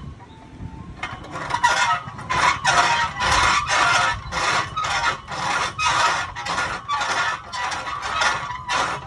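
Outdoor steel elliptical exercise machine squeaking rhythmically as it is pedalled, about two squeaks a second, starting about a second in.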